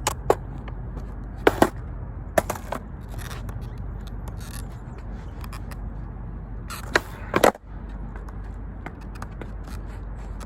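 Skateboard rolling with a steady low wheel rumble, its trucks just tightened, broken by several sharp clacks of the board striking the ground: a pair about a second and a half in, two more soon after, and the loudest pair about seven seconds in.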